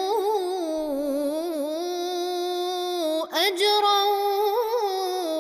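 A man reciting the Quran in the melodic tajweed style, Warsh reading. He holds a long, wavering, ornamented vowel at the end of 'yas'alukum', breaks briefly about three seconds in, then sings 'ajran'.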